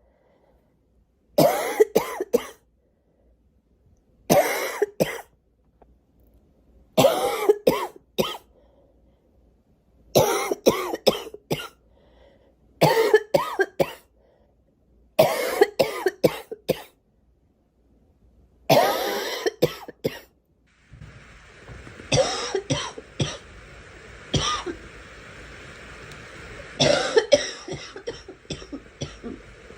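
A girl coughing in repeated short fits of two to four coughs, a new fit every few seconds. About two-thirds of the way in a steady hiss starts underneath the coughs.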